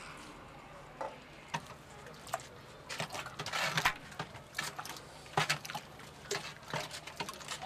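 A wooden stick stirring thick clay dye slurry in a clay dye pit: irregular wet slaps, sloshes and knocks.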